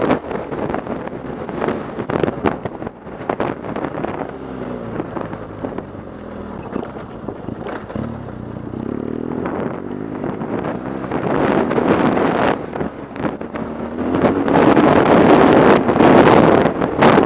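BMW R 1200 GS Adventure's boxer twin engine running under way, its revs rising and falling, with heavy wind buffeting on the microphone that eases for a while and then grows loud again near the end. Scattered knocks and clatters come from the bike riding over rough, rocky gravel.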